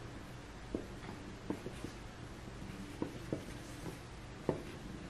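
Dry-erase marker writing on a small handheld whiteboard: faint, a handful of short separate strokes and taps.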